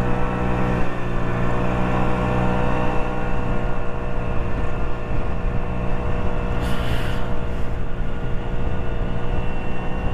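Lexmoto Echo 50cc moped engine running at a steady pitch while riding along, with road and wind noise; a brief rushing hiss about seven seconds in.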